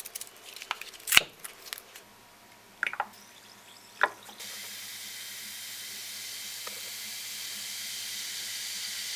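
A few sharp clicks and taps, then from about four seconds in a steady high fizzing hiss that grows slightly louder: Alka-Seltzer tablets effervescing in a glass of water.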